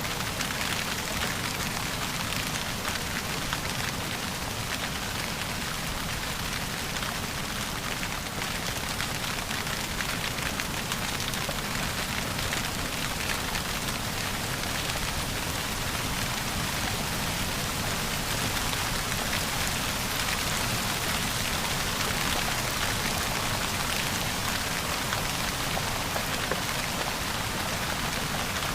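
Steady rain falling and pattering on a surface, an even hiss of many drops with no letup.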